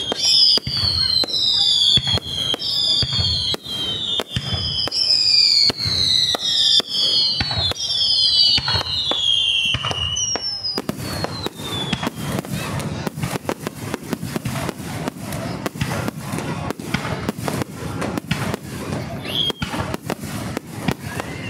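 Aerial fireworks going off close by. For about the first ten seconds, several whistles sound at once, each falling in pitch, over a stream of bangs and crackles. The whistles then stop, leaving dense, rapid crackling and bangs.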